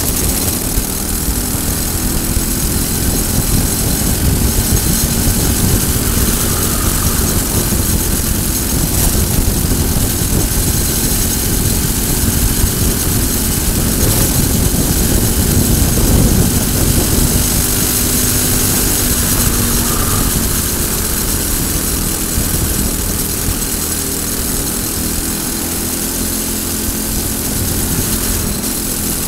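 Briggs & Stratton four-stroke single-cylinder kart engine running at racing speed, its pitch falling when the throttle comes off into corners and rising again on acceleration, over a steady rushing hiss.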